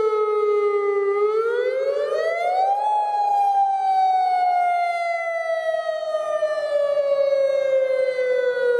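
Outdoor tornado warning siren sounding a wail: its single tone falls, rises steeply about a second in to a peak near three seconds, then slowly falls again.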